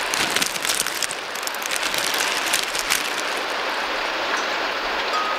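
Heavy rain pouring down in a steady hiss, with denser spattering in the first three seconds.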